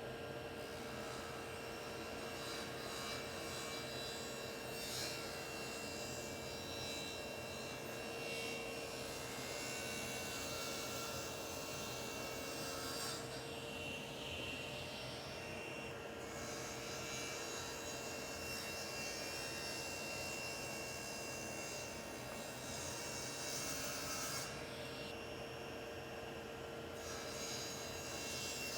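Table saw running steadily with its blade tilted to 45 degrees, cutting the corners off a square wooden blank, with a constant hum under a hiss of sawing. The higher hiss drops away twice for a couple of seconds.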